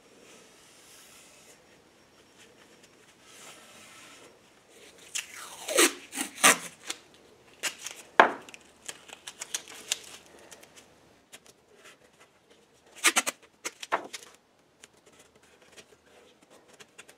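Masking tape being pulled off the roll in several quick ripping bursts, about five seconds in, around eight seconds and again near thirteen seconds, after faint rubbing of a rag wiping a paint can's rim.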